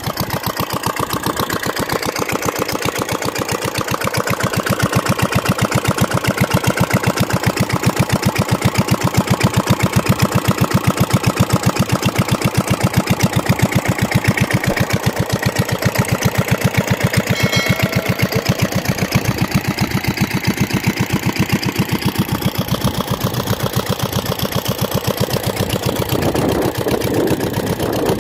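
Royal Enfield Bullet single-cylinder engine running steadily at constant speed with an even, rapid beat, belt-driving a pump that lifts water from a well.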